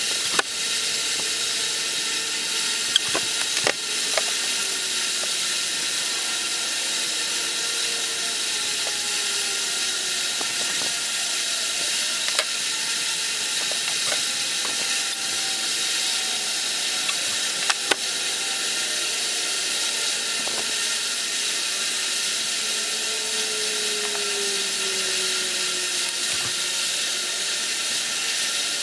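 Steady background hiss, with a few light clicks and taps of metal tools being handled.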